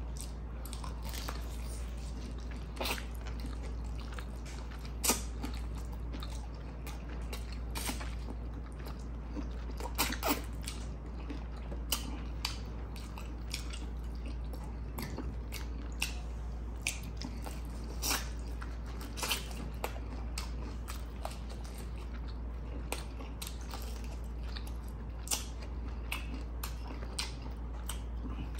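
Close-miked mouth sounds of a person eating chicken and rice: chewing, biting and wet smacks. They come as irregular sharp clicks every second or so over a steady low hum.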